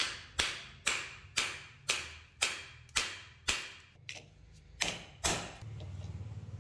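Hammer striking a steel punch to drive the rivets out of a motorcycle clutch sprocket's plate held in a bench vise: about ten sharp metallic blows, roughly two a second, each ringing briefly, with a short pause after about three and a half seconds.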